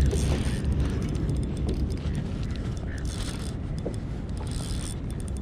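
Wind rumbling on the microphone, with a few faint ticks on top.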